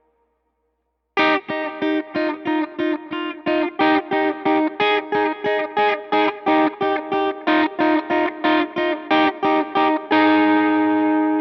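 Electric guitar through an overdriven AC30-style amp model, playing a fast, even run of short picked notes at about three or four a second, starting about a second in. Near the end a note is left to ring out.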